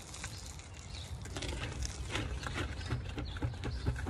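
A removed car wheel and tyre being handled: faint scattered knocks and clicks over a low outdoor rumble, with a bird calling.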